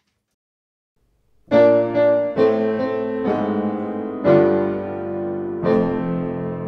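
Background music: after a short silence, a piano plays slow chords, five struck in turn, each left ringing.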